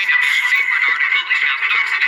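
Background music with a thin, high sound and almost no bass.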